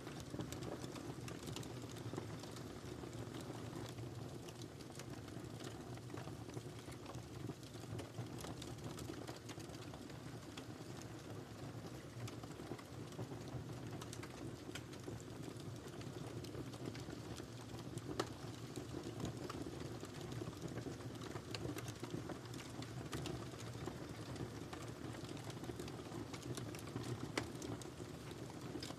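Wood fire crackling in a fireplace: a steady low rush of burning under frequent, irregular small pops and snaps.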